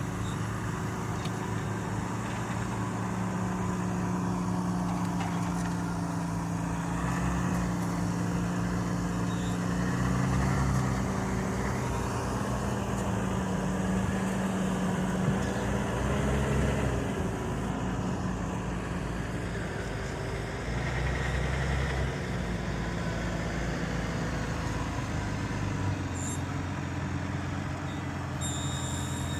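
Valtra Q series tractor's diesel engine working steadily under load while pulling a five-furrow plough, its note shifting in pitch a few times.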